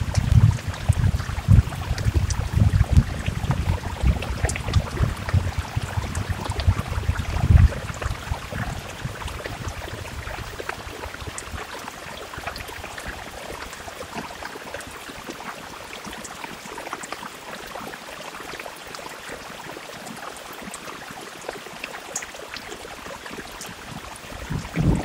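Steady rain falling, a soft even hiss with scattered drops tapping. A low, gusty rumble swells through the first several seconds and dies away about eight seconds in.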